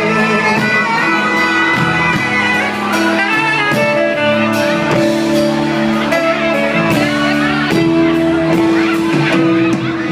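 Live band playing an instrumental passage of a slow Thai pop ballad, with held guitar and keyboard-like notes over a steady drum beat.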